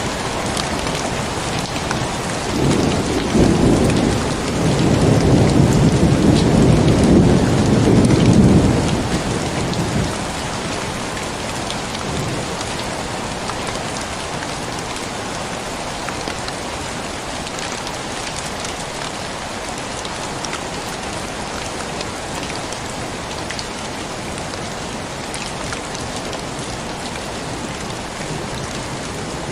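Steady rain falling, with a rumble of thunder that swells a few seconds in, stays loud for several seconds and then dies away, leaving the rain alone.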